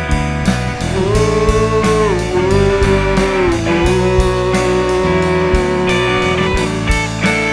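Rock music instrumental passage: a lead guitar holds long notes that bend in pitch, over a steady drum beat and low bass notes.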